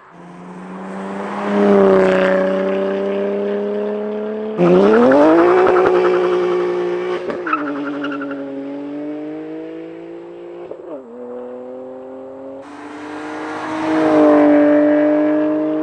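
BMW M2 Competition's S55 twin-turbo inline-six, fitted with an equal-length valved exhaust and OEM downpipes, accelerating hard past in flybys. The revs climb, drop at upshifts about seven and eleven seconds in, then climb again, with the loudest moments as it passes.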